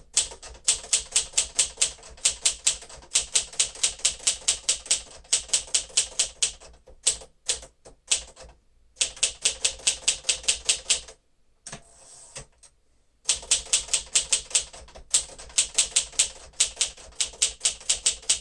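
1954 Smith-Corona Silent-Super manual typewriter being typed on quickly, the keys striking the platen about six times a second in long runs, with two short pauses.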